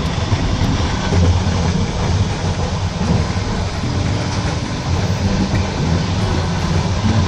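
Passenger railway carriage running at speed, heard from inside: a steady, loud low rumble of the wheels on the track.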